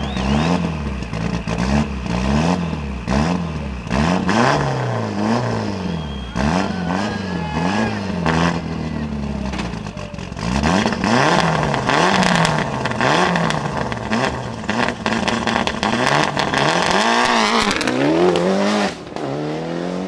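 Toyota Celica GT-Four ST185 Group A rally car's turbocharged 2.0-litre four-cylinder engine being blipped over and over while held at the start line, the revs swinging up and down with sharp exhaust pops between them. Near the end the revs climb steadily and the car pulls away.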